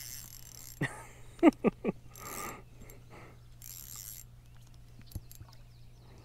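Small spinning reel being cranked in short spurts as a bluegill is reeled in, with a quick cluster of short, sharp squeaks about a second and a half in.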